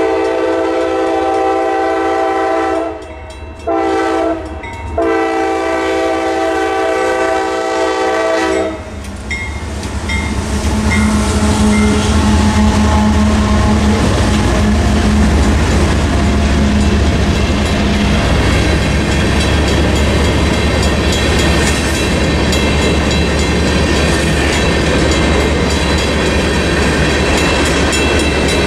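Freight locomotive's air horn ends its crossing signal: a long blast that stops about 3 seconds in, a short blast, then a final long blast to about 9 seconds. Then the CSX GE diesel locomotives and the mixed freight cars run through the crossing, wheels clicking over the rail joints under a steady engine hum.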